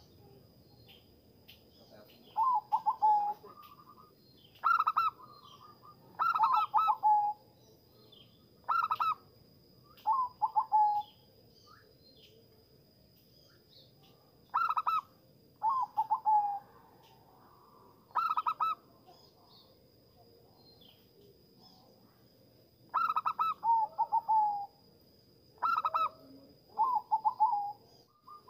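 Zebra dove (perkutut) calling: repeated short phrases of rapid, trilling coos, each about a second long, coming every second or two with longer pauses about halfway through and again later on.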